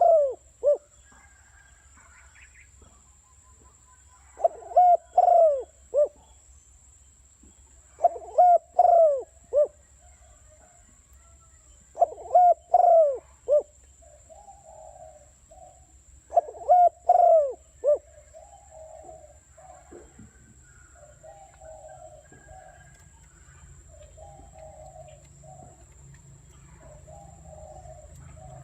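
Spotted dove (cu gáy) decoy calls. The loud multi-note cooing phrases repeat about every four seconds, and softer, quieter coos run on from about the middle to the end.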